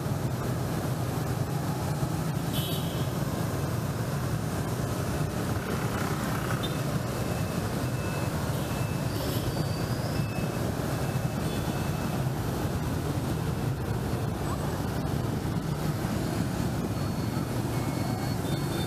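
Steady road traffic noise of a busy city street, a continuous low engine hum of passing vehicles, with a few short faint high beeps here and there.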